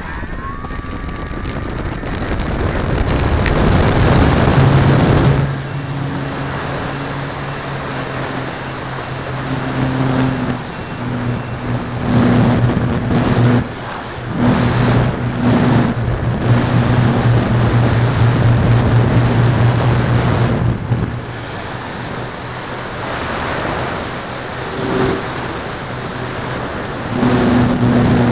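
Twin electric motors and propellers of a Dynam DC-3 radio-controlled model plane, heard from a camera on its fuselage with heavy wind rush on the microphone. The sound builds over the first few seconds as it powers up for takeoff, then the steady propeller hum runs on with a few brief dips as the throttle is eased.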